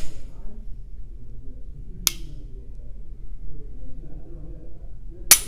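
Faxon FX-19 Patriot pistol being dry-fired. A lighter click comes about two seconds in, then a sharp click near the end as the trigger breaks and the striker falls.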